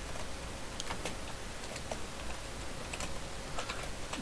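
Typing on a computer keyboard: scattered, irregular key clicks over a steady background hiss.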